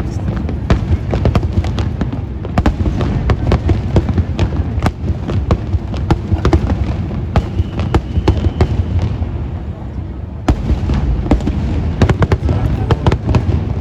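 Fireworks display: many sharp crackling pops over a continuous low booming of bursting shells, easing briefly about ten seconds in.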